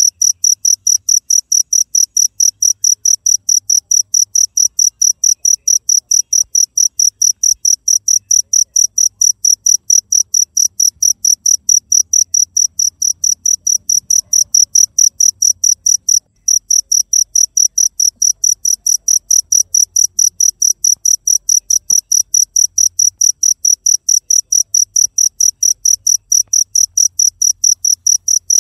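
A cricket chirping steadily and loudly in a fast, even rhythm of about three high chirps a second, with one brief pause a little past halfway.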